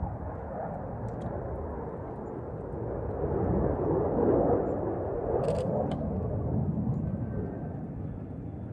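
Jet noise from an RAAF F-35A's afterburning turbofan engine, a deep rumble that swells to a peak about four seconds in and then eases off. About halfway through, a short burst of camera shutter clicks.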